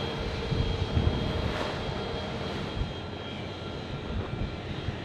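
An engine running steadily, with a few low thumps about a second in.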